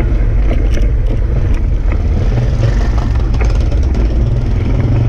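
Steady low rumble of wind buffeting the camera microphone during a bicycle ride, with a few light clicks and rattles.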